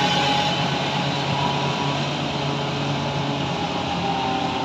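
Diesel engine of a wheel loader running steadily as it drives along a dirt road, with a steady whine over the engine noise.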